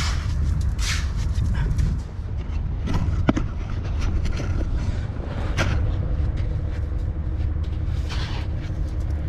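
Steady low rumble of wind on the microphone, with several short, sharp scrapes of a small hand trowel digging into damp sand.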